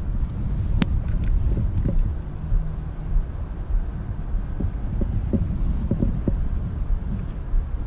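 Wind buffeting an action camera's microphone as a steady low rumble, with a sharp click about a second in and a few soft knocks in the second half.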